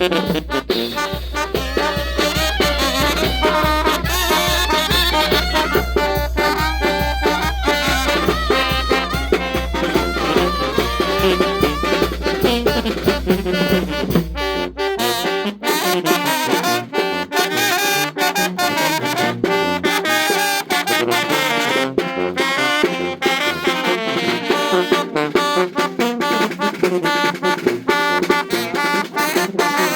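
Brass band playing a ranchera, with trumpets, trombones and saxophones over a steady beat. The deep bass part drops out about halfway through.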